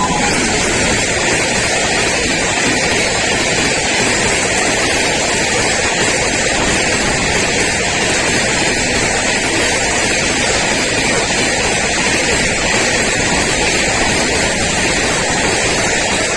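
An express train rushing past a level crossing at speed: a steady, loud roar of wheels on rail and rushing air.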